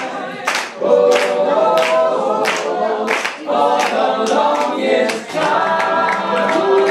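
Male a cappella group singing in close harmony, with hand claps keeping a steady beat about three times every two seconds.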